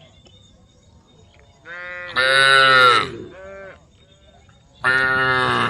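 Cattle mooing: a long, loud moo about two seconds in, a short one right after it, and another long moo near the end.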